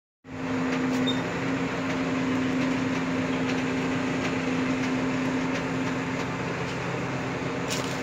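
Truck-mounted crane at work, its truck engine running steadily to drive the hydraulics, with a held mechanical hum, while the boom hoists a balled tree. A few faint ticks sound over it.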